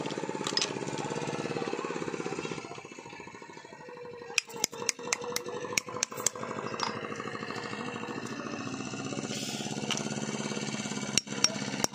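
A boat's engine running with a steady, fast chugging pulse. From about four seconds in, a run of sharp clicks and taps as a knife prises open shellfish shells, with a few more clicks near the end.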